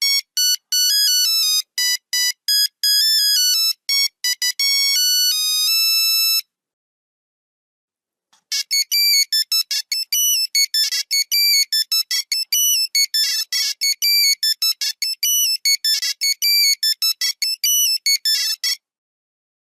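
Nokia 3310 monophonic ringtones in buzzy beeping tones. One melody ends on a few longer held notes about six seconds in. After a two-second pause, a faster, busier tune of rapid notes plays for about ten seconds and stops shortly before the end.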